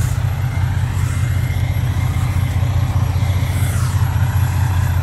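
Steady low rumble of idling diesel semi trucks, with a brief hiss about three and a half seconds in.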